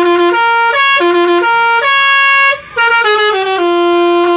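Basuri V3 multi-tone telolet bus horn playing a tune: a run of loud held notes stepping up and down in pitch every half second or so, with a brief break about two and a half seconds in.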